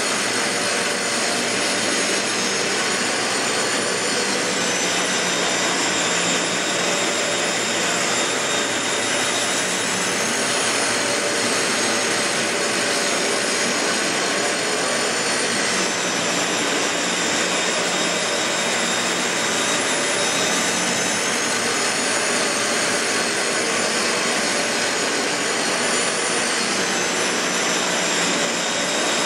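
Dyson DC15 Ball bagless upright vacuum cleaner running continuously: a steady loud rush of air with a high motor whine that wavers slightly in pitch every few seconds.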